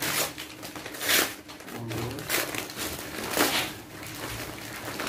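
Gift wrapping paper crinkling and rustling as a present is unwrapped by hand, in several loud rustles about a second apart.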